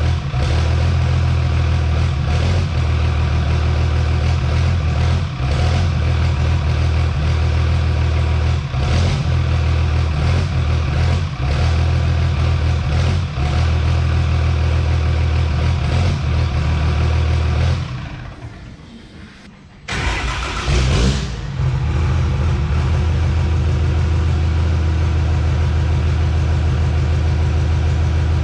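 Cummins inline-six turbo-diesel in a drag truck idling steadily on a stock tune set up for dual injection pumps. About eighteen seconds in the sound fades away. Near two seconds later it comes back with a brief loud burst and settles into idle again.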